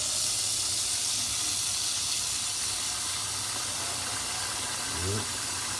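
Kitchen tap running steadily while dried beans are rinsed under it. A brief low voice sound comes near the end.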